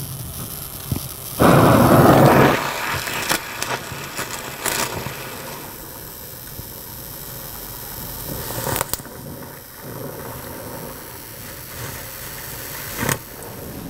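Oxyacetylene torch flame hissing steadily as thin copper pieces are welded with a copper welding rod. A much louder burst of noise comes about a second and a half in and lasts about a second, and a few sharp clicks come later.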